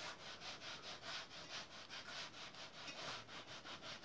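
Faint, quick back-and-forth rubbing of a hand-held wiper on the brick face of a masonry stove, about four strokes a second, as soot is scrubbed off the bricks.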